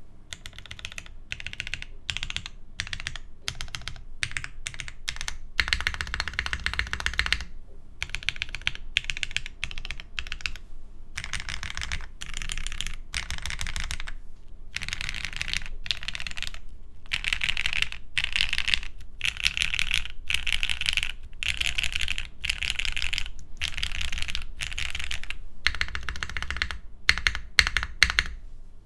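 Fast typing on a Mode Sonnet mechanical keyboard with Gateron Black Ink linear switches: dense runs of key clacks with brief pauses between them.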